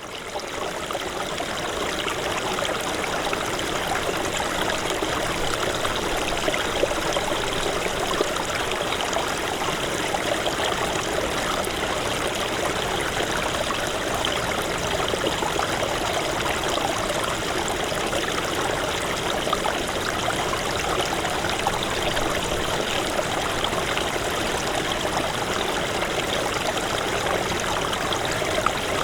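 Small stream of snowmelt running, a steady close babble of water that fades in over the first second or so and then holds even.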